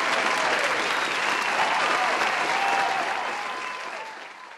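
Crowd clapping, with voices calling out over it, fading out over the last second and a half.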